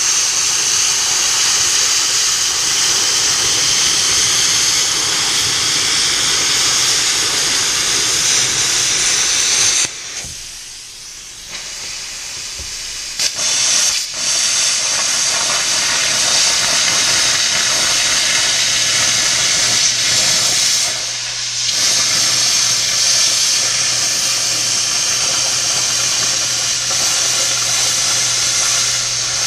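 Handheld plasma cutter cutting through a stainless steel muffler shell: a loud, steady hiss of the arc and air jet. It stops for about three seconds near the middle and dips briefly about two-thirds of the way through as the torch is lifted and restarted.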